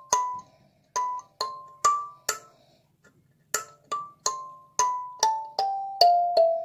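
Kalimba (thumb piano) with metal tines, played one note at a time with the thumbnails as a practice scale. Each note rings and fades. A few notes climb, then after a short pause about three seconds in, the notes step steadily down the scale.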